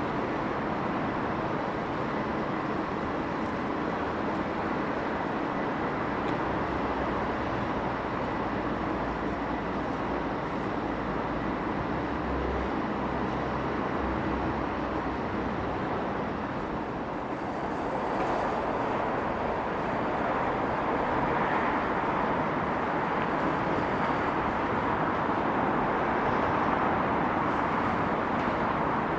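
Train running at the station: a steady rumble that dips briefly, then grows louder for the last third, with wheel clicks starting right at the end.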